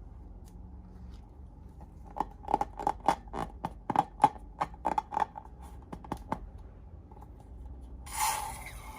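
Scissors snipping: a quick, uneven run of about fifteen sharp cuts over some four seconds, then a sudden hiss near the end.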